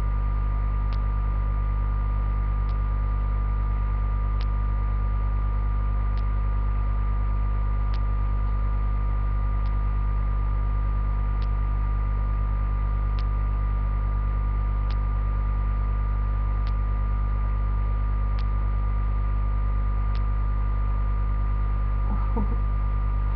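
Steady electrical mains hum, with faint regular ticks a little under two seconds apart.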